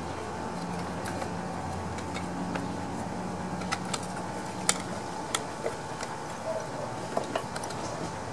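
Plastic air filter housing being handled and pressed into place on a small mower engine: a scatter of short sharp clicks and taps, mostly in the second half, over a steady low hum.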